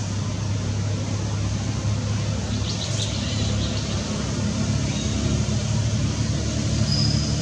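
Steady low engine hum, like a motor vehicle running nearby, with a couple of brief high chirps about three seconds in and near the end.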